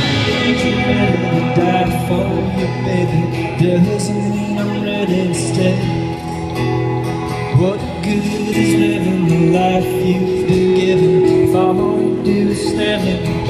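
Live folk-rock band playing an instrumental passage with guitars and long held notes, heard from the middle of an outdoor festival crowd through a phone microphone.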